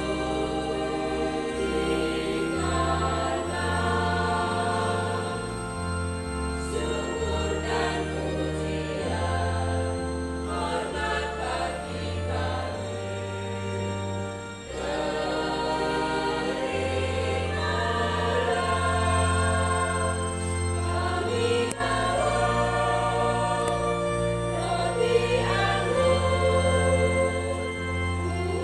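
Church choir singing a hymn in parts, over a keyboard accompaniment that holds long low bass notes changing every second or two.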